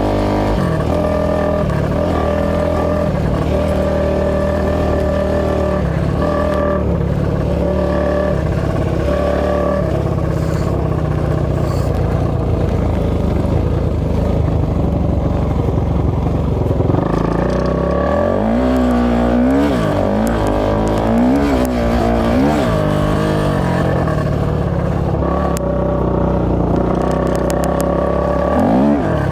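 A 450 cc single-cylinder four-stroke off-road engine running close by at a steady speed, revved up and down several times about two-thirds of the way through before settling back to steady running.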